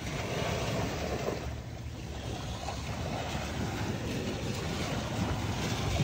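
Seaside wind buffeting the microphone over waves washing on the shore, a steady rumbling noise with no distinct events.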